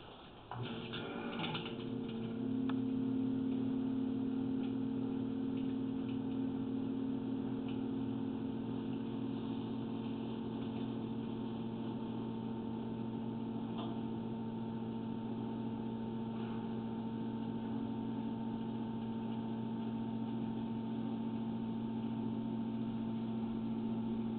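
A small electric motor starts about half a second in and runs with a steady low hum, getting a little louder around two and a half seconds in.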